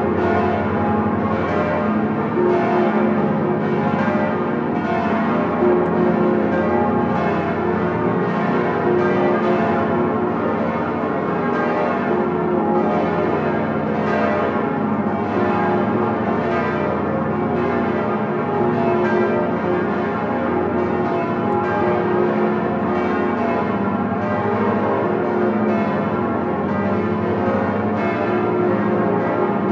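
The swinging bronze bells of Notre-Dame de Paris ringing together in full peal (the Grand Solemnel, bells in plenum), heard from inside the belfry. Many strikes overlap in a steady, continuous ringing of several pitches.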